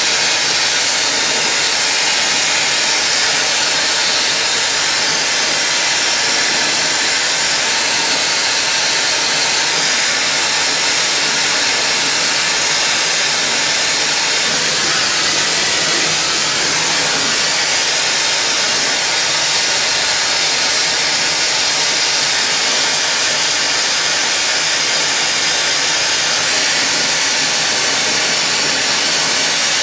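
Hand-held gas-oxygen glassworking torch burning with a steady hiss.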